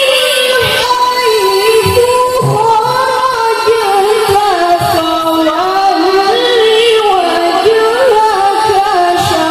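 A woman singing a sholawat solo through a PA, in one long ornamented line whose pitch bends and wavers, over a few scattered low drum beats from the hadrah frame drums.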